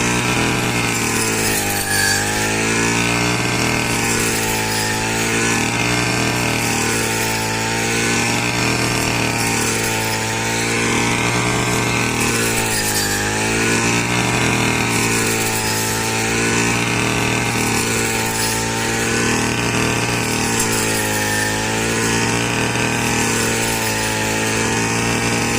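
Small engine of a wheat-cutting machine running steadily, its pitch dipping and recovering about every two and a half seconds.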